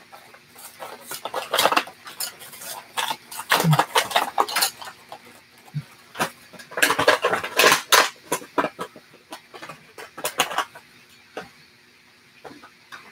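Plastic-and-cardboard toy package being handled and worked at: an irregular run of crinkles, clicks and rattles that dies down about eleven seconds in.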